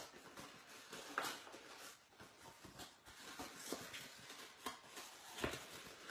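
Faint, scattered rustles and light taps of scored cardstock being handled and folded by hand, a few short sounds over a low room hiss.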